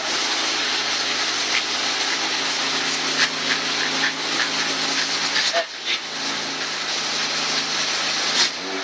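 Honda Accord 3.0-litre V6 idling steadily with a freshly fitted aftermarket cold air intake, its open filter adding a steady hiss of air over the engine's hum. A few light clicks sound, and a short rise in pitch comes near the end.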